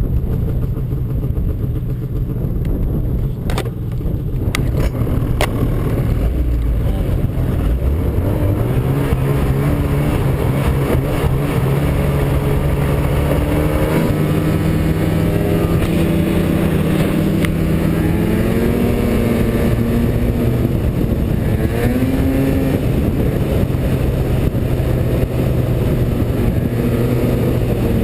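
Snowmobile engine running and revving, its pitch climbing and then rising and falling as the throttle changes. A few sharp clicks come in the first several seconds.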